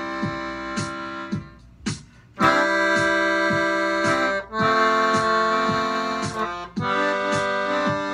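Accordion playing sustained chords over a steady drum machine beat, about two beats a second. The accordion drops out briefly about a second and a half in, leaving the beat alone, and comes back loud about a second later.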